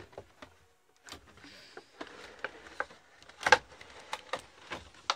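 A cardboard figure box and its packaging being handled: irregular rustles, clicks and knocks, the loudest a clatter about three and a half seconds in.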